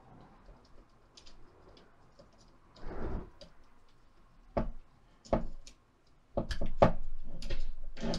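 Nikon F100 camera body's front cover being pressed and fitted onto the body by hand: small plastic clicks and knocks. There is a soft thud about three seconds in, two single clicks a little later, and a quick run of louder clicks near the end.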